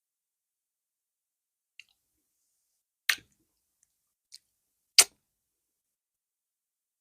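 Eating sounds from mouthfuls of fufu and okra soup: two faint wet clicks and two louder sharp smacks, spaced about a second or more apart, against silence.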